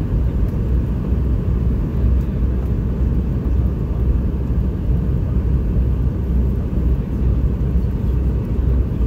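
Steady low rumble of cabin noise inside a Boeing 717 airliner descending on approach to land, from the airflow and its two rear-mounted Rolls-Royce BR715 turbofans.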